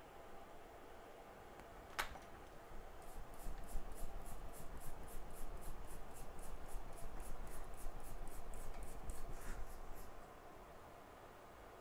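A single sharp click, then quick, even scrubbing strokes, about three or four a second, for roughly seven seconds before they stop.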